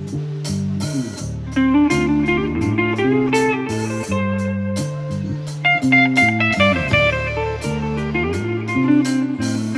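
Live rock band of electric guitar, bass guitar and drum kit playing, the bass line sliding down in pitch a couple of times, with steady drum and cymbal strokes.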